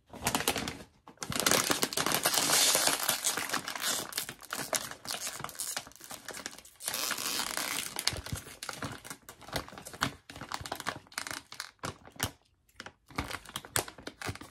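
Plastic potato chip bag crinkling and crackling as it is handled and pulled open. The sound comes in irregular stretches with a few short pauses, loudest in the first few seconds.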